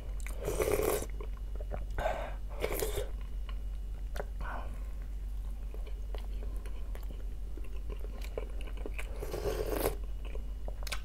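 Close-up eating sounds: chewing, with several short slurps of fish soup from a wooden spoon, the longest near the end.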